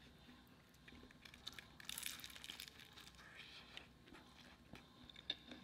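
Faint crunching and crackling of a crispy fried egg roll wrapper being bitten into, loudest about two seconds in, with a few smaller crackles and mouth clicks after.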